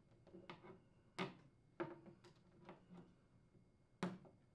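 Faint clicks and taps of plastic as the link is unclipped from the vertical louver fins of an LG air conditioner's plastic horizontal louver assembly. The sharpest clicks come about a second in, just before two seconds, and about four seconds in, with lighter taps between.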